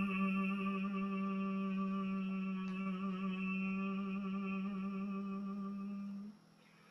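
A man's voice chanting Tendai shōmyō, Buddhist liturgical chant, in a Sanskrit-language piece. He holds one long note on a single steady pitch, and it stops a little after six seconds in.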